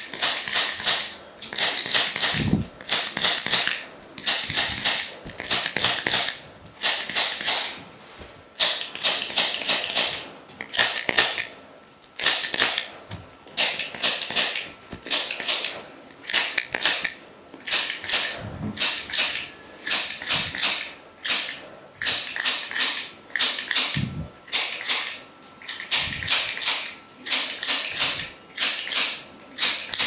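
Handheld chiropractic adjusting instrument firing against the spine: short bursts of rapid sharp clicks, one to two bursts a second.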